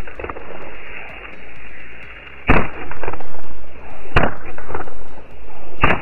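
Firecrackers firing from a matchbox-built toy launcher: three sharp bangs, about two and a half, four and six seconds in, with a rushing hiss of burning powder swelling between them.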